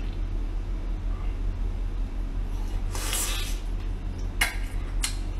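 Close-miked eating of braised seafood: a noisy sucking bite about three seconds in, then sharp chewing clicks near the end, over a steady low hum.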